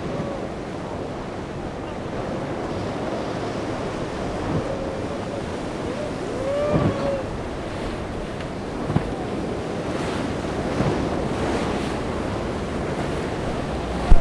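Ocean surf breaking, with steady wind buffeting the microphone.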